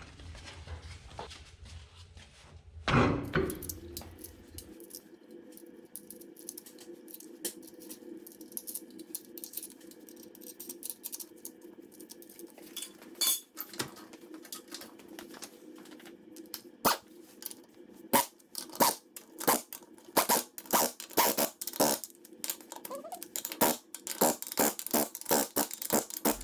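Metal tools and parts clinking and rattling against each other over a steady hum. There is a louder burst about three seconds in, and the clinks come thick and fast near the end.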